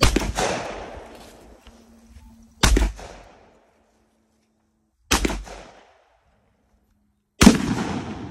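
Four sharp gunshot blasts about two and a half seconds apart, each trailing off in a short echo, the last one heavier and lasting longer: shooting at Firebird exploding targets.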